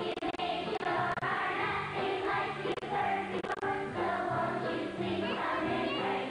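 A children's choir of elementary-school pupils singing a song with musical accompaniment.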